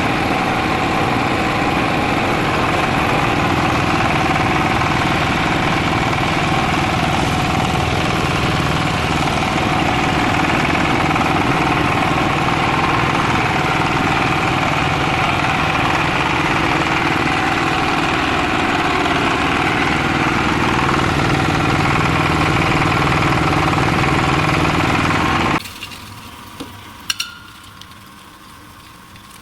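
Maize peeling and grits milling machine running at a steady loud level, a dense mechanical hum and clatter. About 26 seconds in it cuts to a much quieter background with a few sharp clicks.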